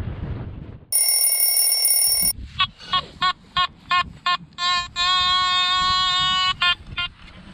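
Nokta Makro Anfibio metal detector sounding electronic tones: a harsh buzzing tone about a second in, then a run of short beeps about three a second, a long steady tone, and two more short beeps near the end.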